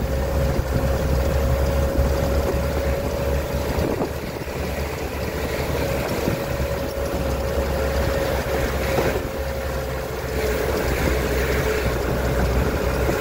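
Open-top tour jeep's engine running steadily as it drives along the road, heard from on board. A steady high whine runs with it and drops slightly in pitch about ten seconds in.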